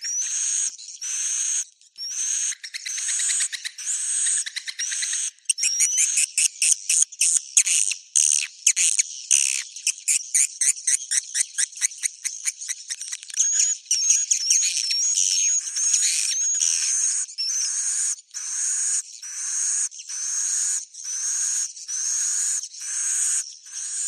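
Swiftlet roosting call ('suara inap'), the lure sound played in swiftlet houses to get swiftlets to settle and stay: short twittering chirps with a rising whistle, repeating about once a second. About a third of the way in it breaks into a fast run of rapid chirps and a trill, then returns to the steady once-a-second pattern.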